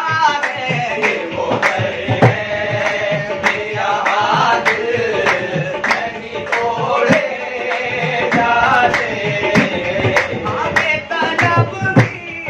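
Qawwali performance: a lead voice and male chorus singing over a harmonium, kept in time by a steady rhythm of hand-clapping and a hand drum.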